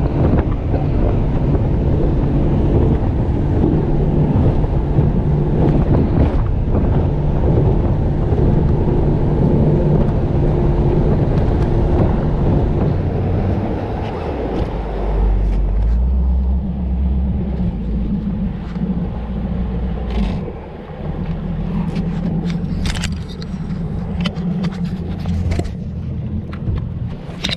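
A boat's outboard motor runs steadily, with rushing wind and water noise. About halfway through it slows and turns to a deeper rumble. Several sharp clicks and knocks come near the end.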